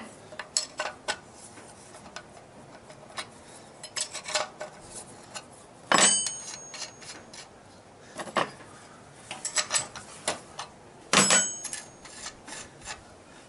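Metallic clicks and light knocks from a child's bike's loosened front wheel being handled in the fork, with two sharper ringing clanks about six and eleven seconds in.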